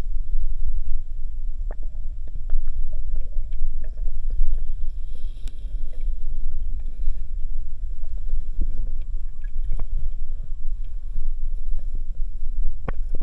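Underwater sound picked up by a camera on a spearfishing dive: a dull, steady low rumble of moving water with scattered small clicks and ticks, and a quick run of sharper clicks near the end.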